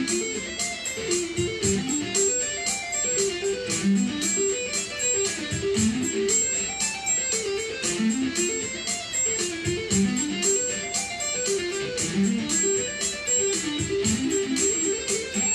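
Electric guitar played with two-hand tapping: rapid notes in repeating arpeggio runs that climb and fall, over a steady, even ticking beat.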